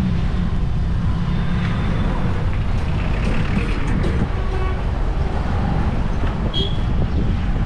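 Heavy city traffic heard from a moving two-wheeler: a steady low rumble of engines and road noise, with a short vehicle horn toot about six and a half seconds in.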